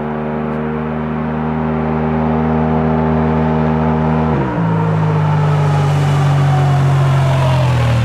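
Polaris RZR Turbo S side-by-side accelerating hard on pavement, its turbocharged engine held at a steady pitch under full throttle. About four seconds in, the pitch drops suddenly and then holds again, with a whine falling slowly above it.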